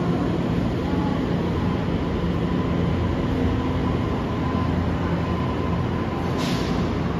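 Train running: a steady rumble with a faint steady whine, and a short hiss near the end.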